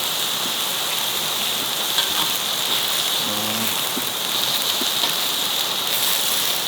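Hanwoo beef sizzling steadily in a cast-iron pan on a wood-burning stove.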